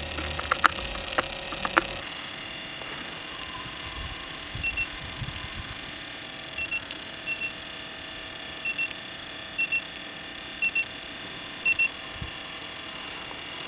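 Homemade freezer rig running with a steady hum. For the first two seconds a metal scraper clicks and scrapes across frozen ice cream on the chilled metal lid. After that an infrared thermometer gives short double beeps, about seven pairs, roughly a second apart.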